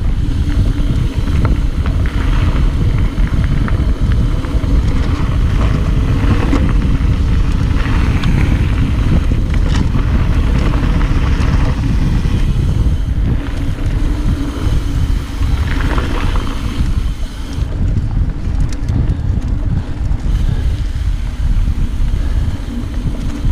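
Wind rushing over the microphone and the steady rumble of a Yeti SB66A mountain bike's tyres on a dirt trail at descending speed, with occasional knocks and rattles from the bike over bumps.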